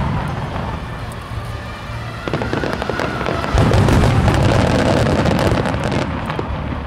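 Fireworks starmine going off: deep booms of shells bursting, with many sharp crackles of glittering stars. A fresh volley of loud booms comes about three and a half seconds in.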